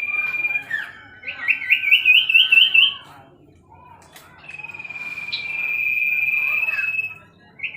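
Common iora singing: a long drawn-out whistle that ends about half a second in, then a quick run of rising chirping notes, a pause, and a second long whistle near the end.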